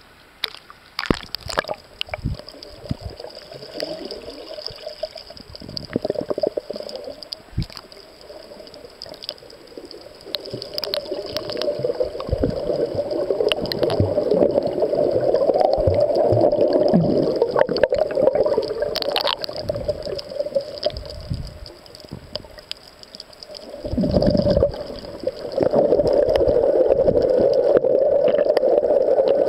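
Water sloshing and gurgling around a waterproof compact camera as it dips through the surface and records underwater: a muffled rushing with scattered knocks. It swells in a long stretch in the middle and again near the end.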